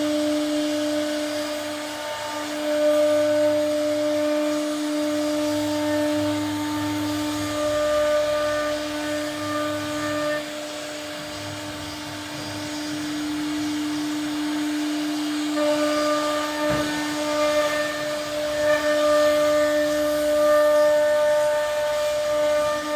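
CNC router spindle running with a steady high whine while it cuts a wooden door panel, the cutting noise growing louder and quieter as the bit works through the wood.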